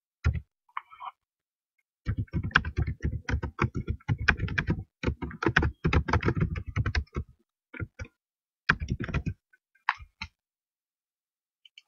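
Typing on a computer keyboard: a fast run of keystrokes for about five seconds starting two seconds in, then a few short bursts of keys.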